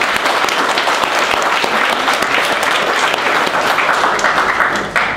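A roomful of people applauding, with the clapping dying away near the end.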